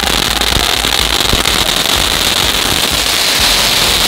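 Crackling ground fountain firework (a 'crackling soda') burning: a steady loud hiss of spraying sparks with dense, rapid crackling.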